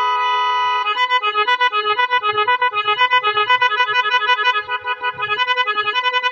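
Policeman LED multi-tone electronic horn (a 12 V, 18-tone musical horn) sounding loud. It holds one steady tone for the first second or so, then plays a fast tune of short stepping notes, about five a second.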